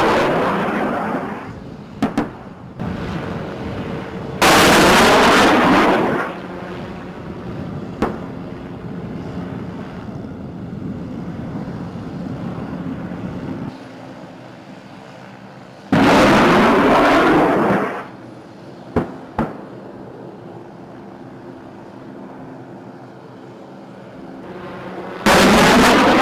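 Rocket fire from an MD 530F Cayuse Warrior attack helicopter: four loud blasts, one at the start, about 4 seconds in, about 16 seconds in and near the end, each lasting a second or two and fading, with a few short sharp cracks between them. The helicopter's engine and rotor hum steadily in the gaps.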